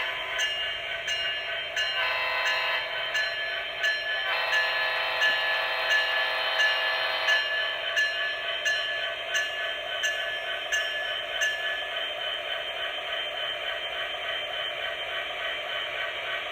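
Onboard sound system of a model CSX SD70ACE diesel locomotive playing its diesel sounds through a small speaker: sustained multi-note horn blasts over a bell ringing about twice a second, the bell stopping a few seconds before the end. The repaired sound decoder is working.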